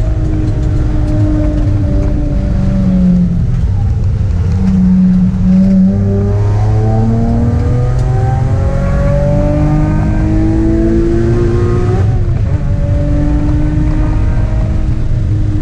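Sports car engine heard from inside the cabin during a track lap. Its note falls over the first few seconds as the car slows, then climbs steadily under acceleration. It drops sharply at a gear change about twelve seconds in and then pulls again.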